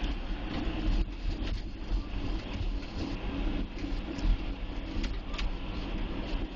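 Cat 140H motor grader's diesel engine running steadily under load while its V-plow pushes heavy wet snow and slush, with irregular rattling and knocks over the engine hum.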